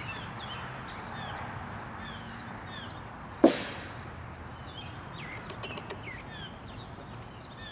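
Small birds chirping over and over, with one sharp knock about three and a half seconds in and a few light clicks a couple of seconds later.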